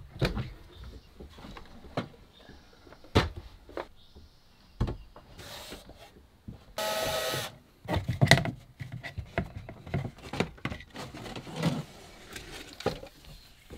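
Overhead wooden cabinet doors being opened and a wooden cover panel handled: scattered clicks and knocks, with a short squeak about seven seconds in.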